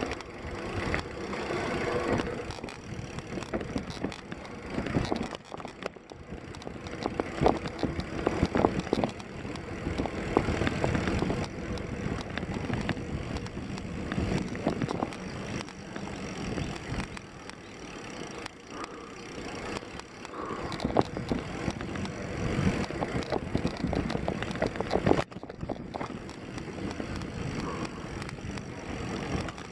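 Mountain bike rolling down a dirt singletrack: tyre noise on the dirt, with knocks and rattles from the bike as it goes over bumps, heard through a handlebar-mounted camera. The noise swells and eases with the terrain and dips briefly about 25 seconds in.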